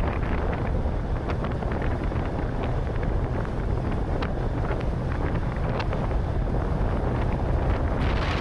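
Wind buffeting the microphone on a moving boat, over a steady low rumble, with scattered short splashes or ticks.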